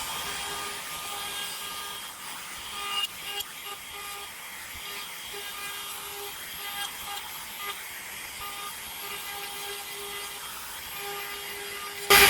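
CNC machine running a cutting job: a steady low hiss with a thin motor whine that comes and goes as the axes move, and a few light clicks about three seconds in.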